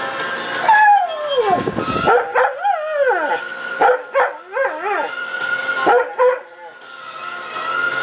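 Mixed-breed dog howling along to a song: a long falling howl about a second in, then wavering howls broken by short yips, with the song's steady tones underneath.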